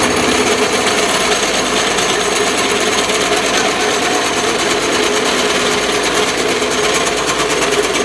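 Pillar drill press running under load, its bit cutting steadily through a steel angle bar.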